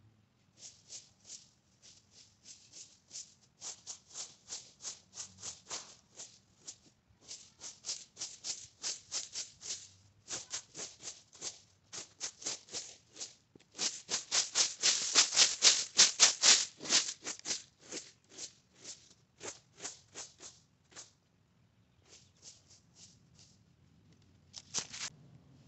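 Leaf rake scraping through dry leaves on the forest floor in quick repeated strokes, about three or four a second, in bursts with short pauses and loudest around the middle: leaves being raked off a dirt-bike trail so the tires can catch traction.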